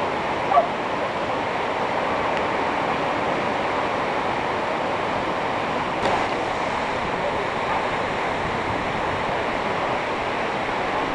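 Steady rushing of the Banica River in flash flood, fast muddy floodwater pouring past. A single brief knock about six seconds in.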